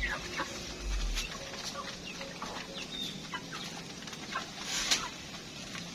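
A mixed flock of broiler and Kabir chickens clucking in short, scattered calls while they peck at feed, with one sharp tap about five seconds in.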